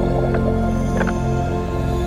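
Background music: sustained chords held steady, with a few soft struck notes about a third of a second and a second in.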